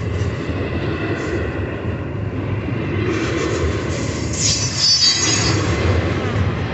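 Double-stack container well cars of a CSX freight train rolling past close by: a steady rumble and rattle of steel wheels on rail, with a brief high-pitched wheel squeal about four and a half seconds in.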